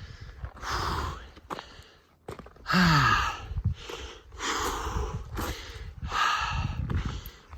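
A person breathing hard from the exertion of a steep climb: deep, heavy breaths about every second and a half, one of them with a short voiced groan about three seconds in.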